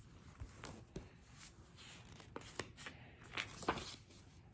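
Faint paper rustles and a few soft clicks as the pages of a picture book are handled and turned.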